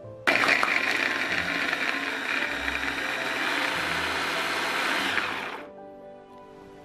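Electric mini chopper running, its blade chopping peeled apple chunks. It starts about a quarter second in and winds down after about five seconds, over quiet background music.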